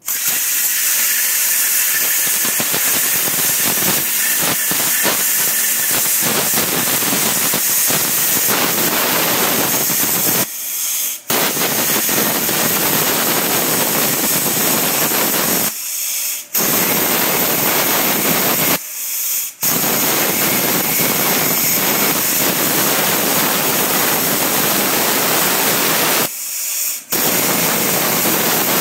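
Miller Spectrum 375 Extreme air plasma cutter cutting through the rusted sheet-steel deck of a lawn mower: a loud, steady hiss of the air-driven arc that cuts out briefly four times and starts again.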